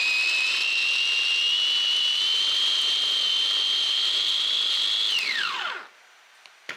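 Electric blender motor running with a high whine whose pitch creeps slowly upward, then switched off about five seconds in, winding down with a falling pitch. A short click follows near the end.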